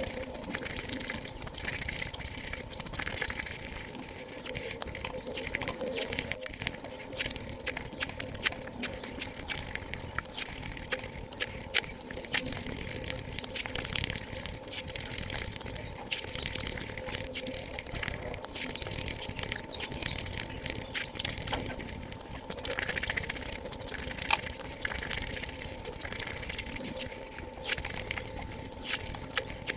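Close-miked eating sounds of sweets, sped up: a rapid, irregular stream of wet chewing and mouth clicks and smacks, over a faint steady hum.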